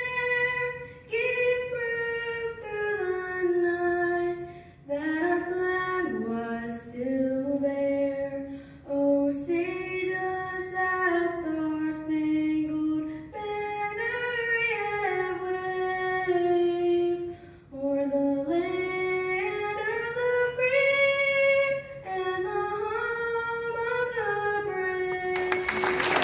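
A woman singing the national anthem solo and unaccompanied through a microphone, one melodic line with long held notes, ending on a long held note. Applause breaks out right at the end.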